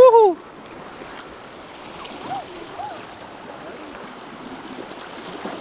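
Sea washing against shoreline rocks: a steady rush of waves with wind on the microphone. A short loud shouted word at the very start.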